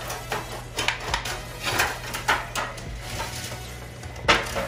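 Thin aluminum grill pan crinkling and crackling as it is handled and cut with scissors, in irregular snips and crinkles, the loudest near the end.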